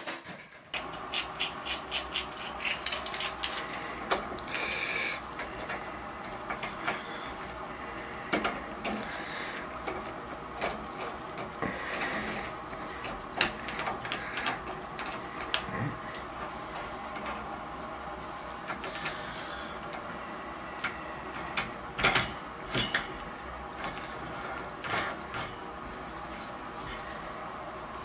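Irregular metal clicks, taps and scraping of hand tools and a cartridge puller being worked onto a Moen Posi-Temp shower valve, with one louder clack about three-quarters of the way through.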